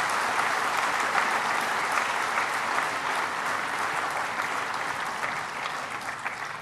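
Audience applauding in a large hall: a steady wash of many hands clapping that swells in just before and slowly fades out near the end.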